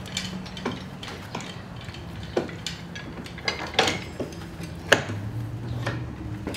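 Steel screw clamps and a lever bar being worked against a steamed oak plank on a wooden boat hull: irregular sharp metallic clinks and clanks, about eight of them, over a steady low hum.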